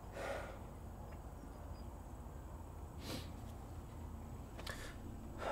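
A few soft breaths from a person, over a low steady hum of room tone.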